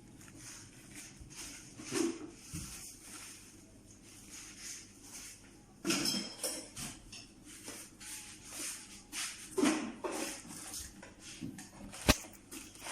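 Kitchenware and containers being handled and set down on a marble countertop: scattered knocks and clinks, with one sharp knock near the end.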